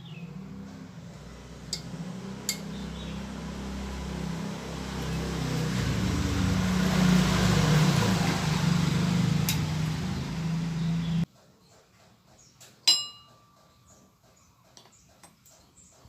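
A motor running with a steady low hum, growing louder, then cutting off abruptly about eleven seconds in. A sharp metallic clink follows, among a few lighter clicks.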